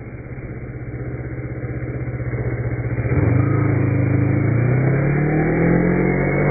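Kawasaki Ninja motorcycle engine pulling under throttle, its pitch climbing steadily. About halfway through it gets louder and keeps rising, then drops off abruptly right at the end.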